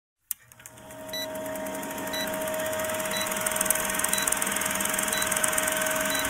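Old film-projector countdown sound effect: a steady projector whirring and clatter with film crackle, fading in over the first second, and a short high beep about once a second as the numbers count down.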